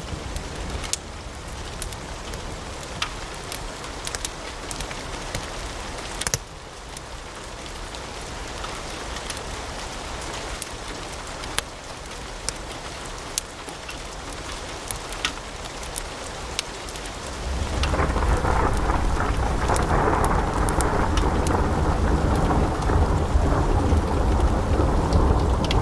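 Wood fire in a fireplace crackling, with scattered sharp pops over a steady rushing hiss. About two-thirds of the way through, the fire's low rumble and hiss step up and grow much louder.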